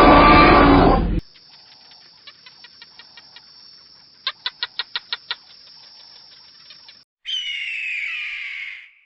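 A loud, noisy animal call cuts off about a second in. Bird chirps follow: faint rapid ticking notes with a louder run of about eight quick calls in the middle. Near the end comes a harsh bird call that falls in pitch.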